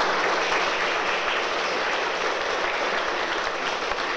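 Audience applauding: many hands clapping in a steady wash.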